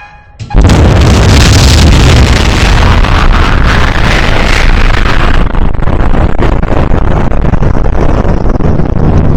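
An explosion: a sudden, very loud blast about half a second in that carries on as a loud, steady, deep rumble. Its high hiss dies down after about five seconds.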